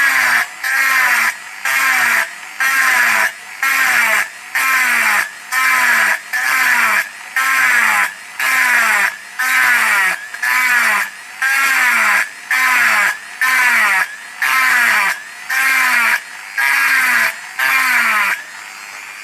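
Small electric rotary tool with a round burr, run at low speed and grinding into a metal engine cover to stipple a textured background. It sounds in short, even bursts about once a second, the pitch bending as the burr bites each time.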